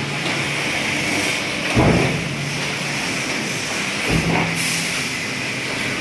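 Stainless-steel precision stamping press line running: a steady machine hiss and hum, with a thud from a press stroke about two seconds in and again about four seconds in.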